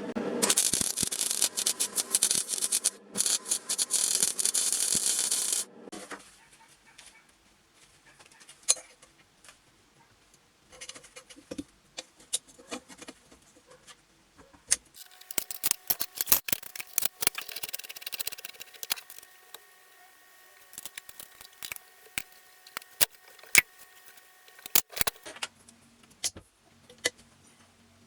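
Workshop handling sounds: small metal parts and tools clink, rattle and scrape. For the first five or six seconds a loud steady noise covers everything, and a second, quieter noisy stretch with a faint steady whine runs through the middle.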